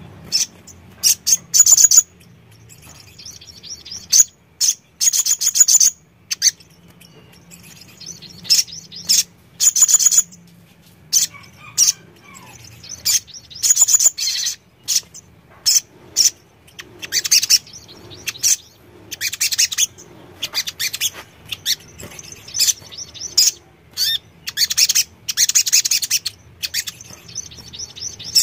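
Male olive-backed sunbird (sogon) singing. It gives short, rapid, high-pitched trills and chips in quick bursts, one every second or two.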